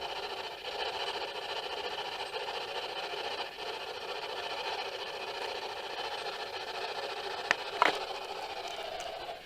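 Spirit box scanning through radio stations: a steady hiss of radio static, broken by two short sharp blips near the end.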